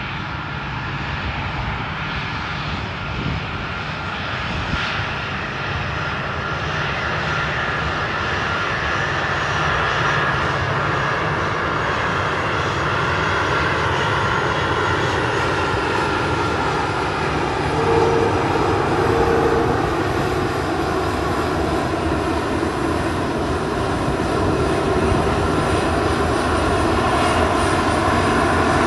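Four CFM F108 turbofan engines of a USAF Boeing KC-135 Stratotanker running at taxi power as it rolls onto the runway. It is a steady jet whine over a low rumble, growing slowly louder through the stretch.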